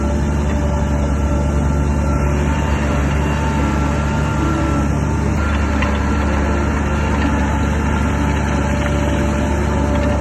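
Bulldozer's diesel engine running steadily: a deep drone with a few steady higher tones above it.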